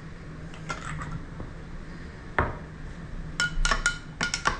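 A metal spoon in a drinking glass: a few soft taps and one sharper knock about halfway, then, from a little past three seconds, a quick run of ringing clinks as the spoon stirs the Bloody Mary mix against the glass.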